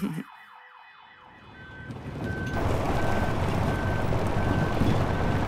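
The music cuts off and a faint echo of it fades out. Then a heavy wheeled construction vehicle's reversing alarm beeps steadily, about one short beep every three-quarters of a second, while the machine's engine noise swells in about two seconds in.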